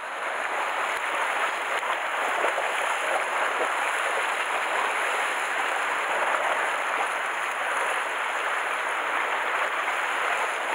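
Sea surf washing against a rocky shore: a steady, even rush of water with no breaks.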